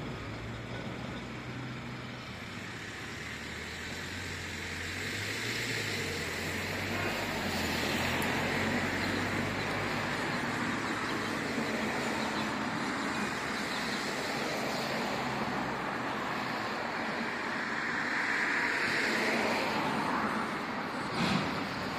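Heavy diesel machinery running: a container handler's engine hums and shifts in pitch through the first half, with broader rushing noise swelling twice, about a third of the way in and near the end, and a short knock just before the end.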